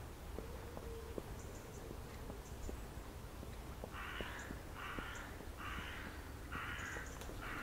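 A crow cawing five times, harsh calls just under a second apart, starting about halfway through.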